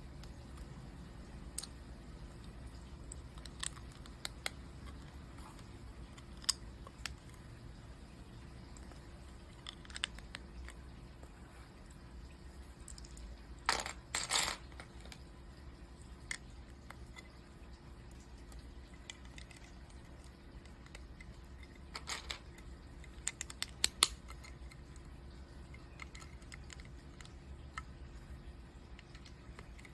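Plastic Lego pieces being handled and pressed together: scattered sharp clicks, a short burst of rattling clatter about halfway through, and a run of clicks later on.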